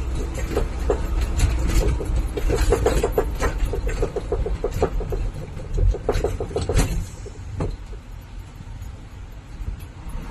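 Vehicle cab while driving: a low engine and road rumble with a dense run of irregular rattling clicks and squeaks. About seven seconds in, the rattles stop and the rumble drops off as the vehicle eases down.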